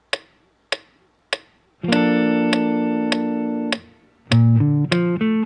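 Metronome clicking at 100 beats a minute as a count-in. A clean semi-hollow electric guitar then strums a B-flat major 7 chord and lets it ring for about two seconds. After a short gap it picks the chord's notes one at a time in a rising arpeggio, two notes to each click.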